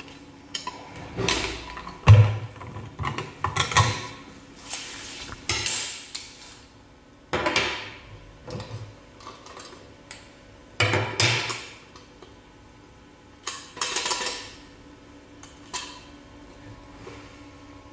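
Metal parts of a manual meat grinder clinking and scraping as they are handled: a dozen or so irregular clanks and short scrapes.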